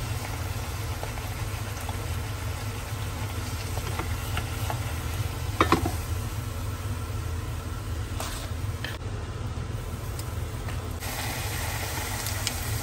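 Puri deep-frying in hot oil in a small pan: a steady sizzle, with a spatula and wooden spoon pressing and turning the dough, over a low steady hum. One brief clink of a utensil about six seconds in.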